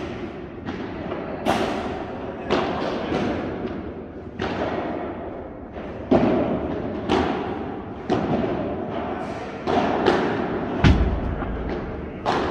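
Padel rally: sharp, echoing pops of padel rackets striking the ball and the ball bouncing, roughly once a second and unevenly spaced, in a large indoor hall. About eleven seconds in there is a louder, deeper thud.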